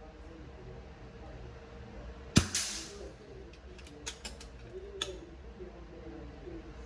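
A single shot from an FX Dreamline Tactical Compact .177 PCP air rifle about two seconds in: a sharp crack that rings briefly in the range. A few light mechanical clicks follow a couple of seconds later.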